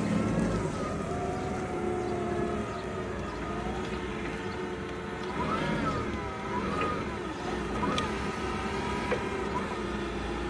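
The propane-fuelled engine of a 2016 Hyster H50XT forklift running as the truck drives and turns on pavement. Its pitch rises and falls with the throttle around the middle.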